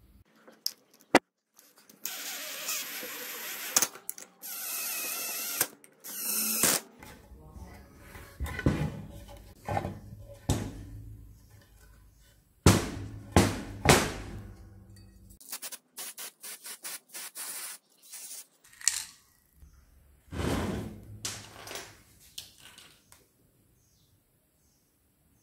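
A power drill runs in a few short bursts, followed by wooden pieces being knocked, set down and handled with sharp clacks and thuds.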